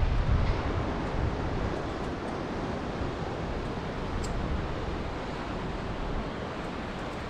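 Steady wash of ocean surf and wind, with wind rumbling on the microphone, strongest in the first second.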